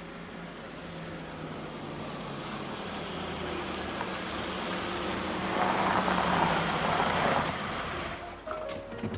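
Engine noise of a passing vehicle, growing louder to a peak about six seconds in, then fading away.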